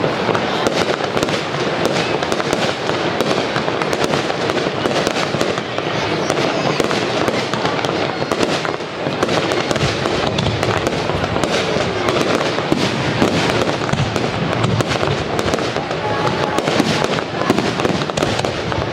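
Aerial fireworks display going off continuously, a dense crackle of many overlapping bangs and pops with no pause.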